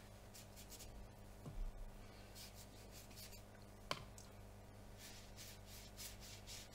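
Faint, scratchy strokes of a watercolour brush rubbing against the palette and paper, with a single light tap about four seconds in.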